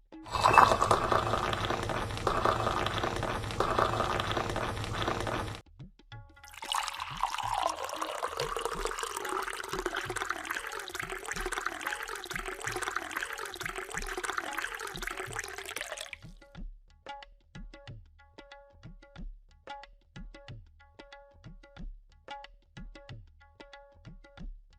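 Tea being poured in two long streams: the first about five seconds, the second about nine seconds with a pitch that shifts as the vessel fills. Light tabla music with a steady beat follows.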